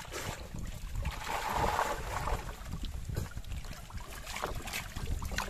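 Water splashing and churning, with many small irregular splashes, as a dense mass of trapped fish and squid thrashes at the surface inside a net, the water 'boiling' with fish.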